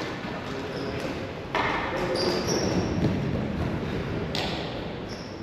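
Ball hockey play: three sharp knocks of sticks and ball, one at the start, one about a second and a half in and one near the end, with a few short high squeaks of shoes on the floor around two seconds in, over a steady background of game noise.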